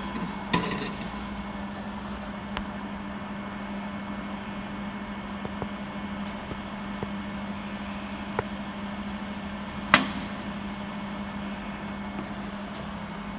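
Flash-lamp pumped jewellery laser welding machine running with a steady hum and firing single laser pulses, each a sharp snap. There is one near the start, a loud one about ten seconds in, and a few fainter ticks between. The snap of the pulse is the sign that the laser is working.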